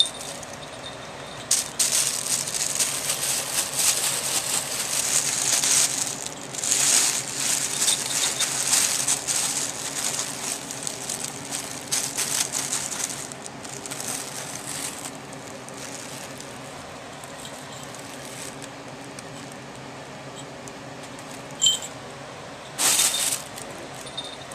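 Clear plastic bag crinkling and rustling as kittens play in and around it, loud through the first half and then dying down, with a short burst near the end. A small collar bell jingles briefly now and then.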